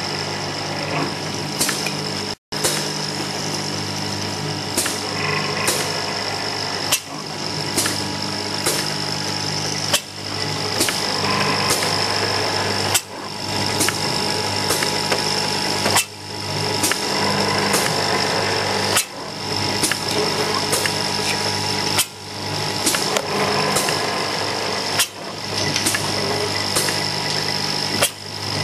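Two-head bottle filling and capping machine running: a steady motor hum and a high whine under frequent sharp clicks, with a cycle that dips and picks up again about every three seconds.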